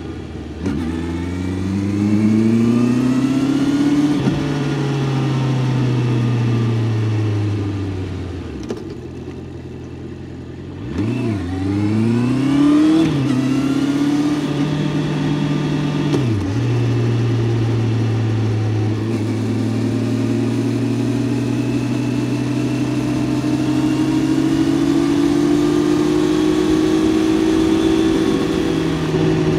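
Honda CBR650F inline-four engine under way. It revs up, then eases off and slows to a low, quieter note. It then pulls away again, its pitch climbing and dropping sharply twice at upshifts, and settles into a steady cruise with revs creeping slowly up.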